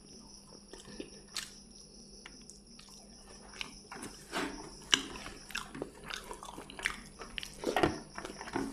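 A person eating close to the microphone: chewing and wet lip smacks, with soft squishes of fingers working rice on a plate. The sounds are sparse at first and busier from about halfway. A faint steady high whine runs underneath.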